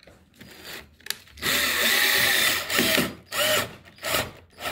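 Cordless drill/driver driving a wood screw into cacheta wood. It runs steadily for about a second, then gives three short trigger bursts as the screw is seated.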